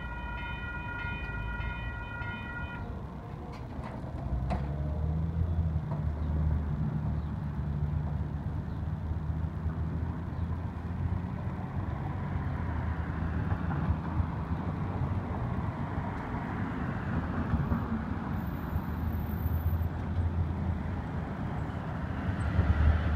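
WCH Type 2 electronic crossing bells ringing as the gates rise, stopping about three seconds in. Then road traffic moves across the crossing: car and delivery-truck engines and tyre noise, with a steady low rumble that swells again near the end.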